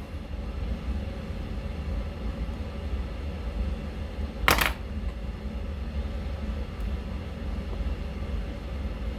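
Steady low hum with one sharp metallic click about halfway through, as small tire chains and their hooks are handled and fitted onto an RC truck's tire.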